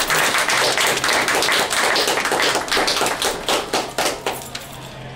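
A small audience applauding: many hand claps close together that thin out and die away about four and a half seconds in.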